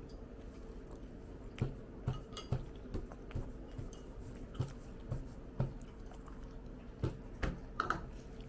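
Cutlery clinking and tapping against dishes at the table: about a dozen light clicks at uneven intervals, the loudest cluster near the end, over a faint steady hum.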